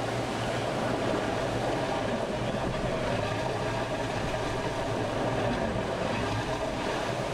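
Steady rumbling and rushing noise of an IMOCA 60 ocean-racing yacht under way, heard from its cabin hatch.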